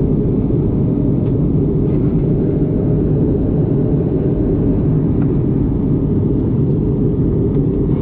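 Steady cabin noise inside an Airbus A320-family jet airliner during descent: a constant deep rumble of engines and airflow with a hiss over it, unchanging throughout.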